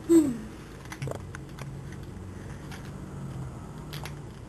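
Small scattered clicks and crinkles from a ramen seasoning packet being handled in the fingers. Right at the start there is a short louder sound that falls in pitch.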